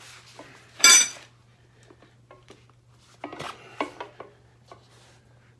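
Metal tire irons clanking against the wheel rim as a motorcycle tire is levered off: one loud ringing clank about a second in, then a few lighter clinks and scrapes around three to four seconds in.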